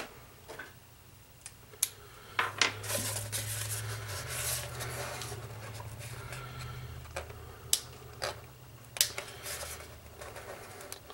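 Adhesive sticker paper being handled and peeled from its backing with a hobby knife: light rustling and crinkling with scattered small clicks and taps.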